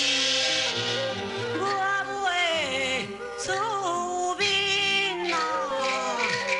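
A woman singing a Taiwanese opera (gezaixi) aria line over traditional instrumental accompaniment, her voice sliding up and down in ornamented, drawn-out notes.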